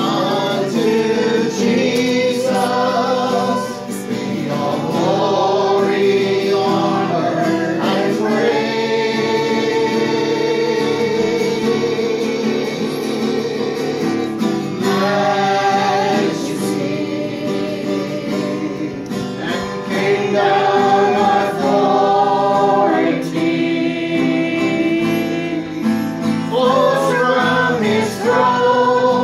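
A group of people singing a slow song together, accompanied by a strummed acoustic guitar.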